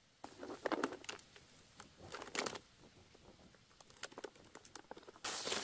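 Dry soil, leaves and plastic rustling and crackling in short bursts as hands work the ground around a plastic-bottle rat trap set in a burrow mouth. The crackling turns denser and louder about five seconds in.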